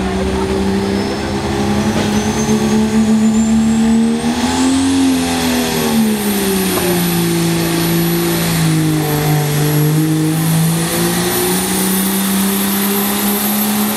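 Diesel pickup pulling a sled at full throttle. The engine pitch climbs about four seconds in, sags lower from about six to eleven seconds as it lugs under the load, then comes back up near the end. Over it a high turbo whine rises over the first few seconds and then holds.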